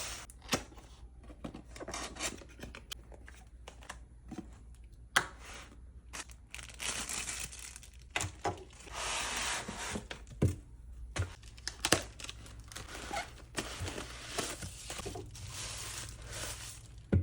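Packaging being torn open and crinkled, with scattered sharp clicks and knocks as the box and its contents are handled.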